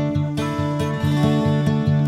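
Background music: acoustic guitar strumming at a steady, even beat.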